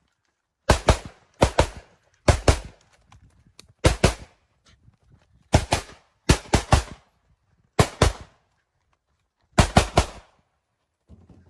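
Rifle fired in rapid strings of two or three shots, about eight strings, each shot a sharp crack with a short echo.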